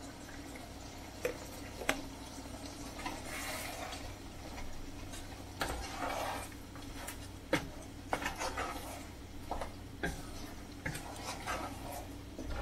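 Wooden spatula stirring chicken pieces through thick green chili paste in a nonstick pan, with irregular knocks of the spatula against the pan and stretches of scraping.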